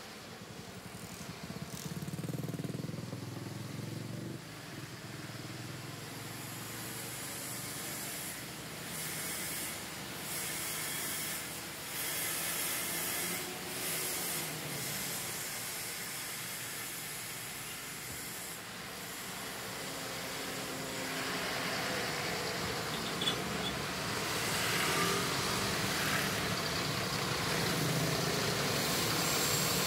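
Street traffic heard from inside a minibus: a steady rumble of engines and road noise with a few short hisses, growing louder over the last ten seconds.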